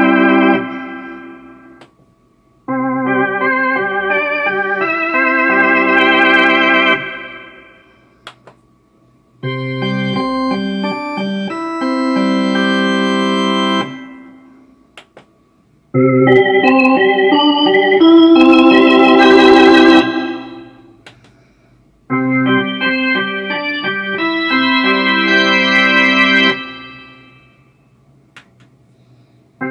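Roland D-50 synthesizer playing electronic organ presets: sustained chords in four passages of a few seconds each, separated by short silences as the player steps from one organ preset to the next. One passage has a strong wavering vibrato.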